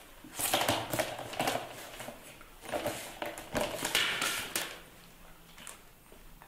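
Plastic basket and its hinged lid rattling and knocking, in several bursts of clicks and scrapes as a monkey clambers in and out of it.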